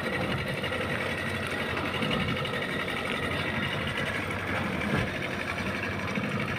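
Fishing boat's engine running steadily, with a fast, even mechanical chatter.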